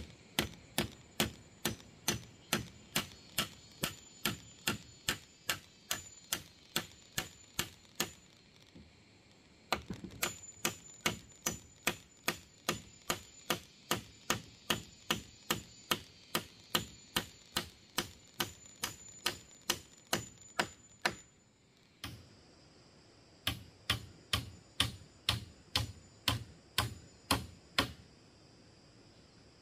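Quick, even chopping strokes of a blade on bamboo or wood, about three a second, in three runs broken by two short pauses.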